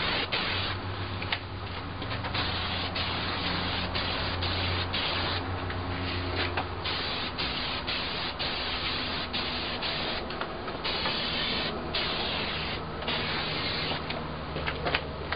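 Aerosol can of Rust-Oleum Clear polyurethane hissing as it sprays a coat of finish, in long sprays with several short breaks.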